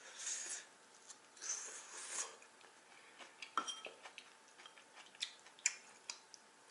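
Close-up eating sounds of jajangmyeon: two short hissing slurps in the first two seconds or so, then quiet chewing with a few sharp clicks, some of them from utensils against the dish.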